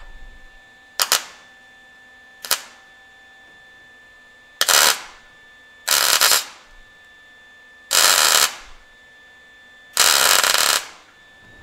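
Welder laying tack welds to join a fender skirt mounting bracket to the car's steel round rod. There are six bursts of arc: two very short ones, then four longer ones of up to about a second each.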